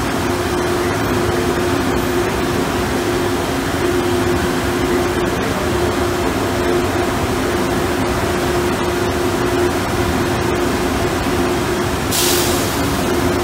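Freight train of tank wagons rolling past: a steady wheel-on-rail rumble with a steady tone running through it, and a brief hiss about twelve seconds in.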